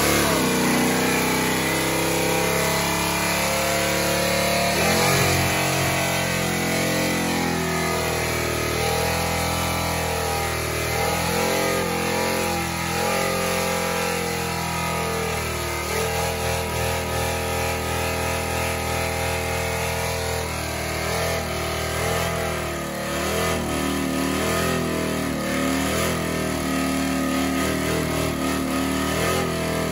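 1970s Ford pickup's engine revved hard and held high through a burnout, its pitch wavering up and down as the rear tyres spin and smoke.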